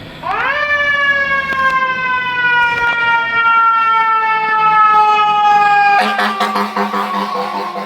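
Fire engine siren sounding loudly: its pitch leaps up just after the start, then slides slowly downward for several seconds. About six seconds in, a lower, harsh horn blast from the apparatus cuts in over it.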